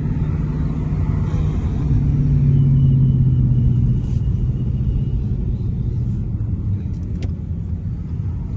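Steady low hum of a running vehicle engine, growing louder for about two seconds in the middle, then easing off.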